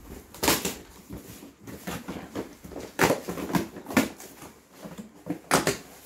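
Cardboard package being pulled and torn open by hand: a few short, loud rustling, scraping strokes with quieter handling noise between them.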